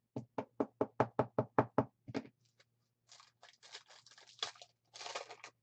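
A stack of trading cards tapped on edge against a table about ten times in quick succession, about five knocks a second. From about three seconds in, a foil card pack crinkles and tears as it is opened.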